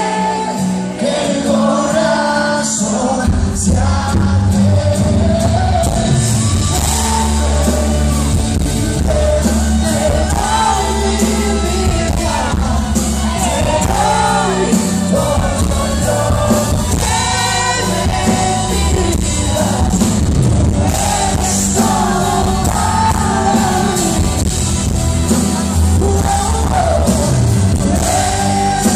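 Live pop song: a male lead vocalist singing through the PA over a band with drums, electric guitar and bass, heard from the audience in a concert hall. The bass and full band come in about three seconds in.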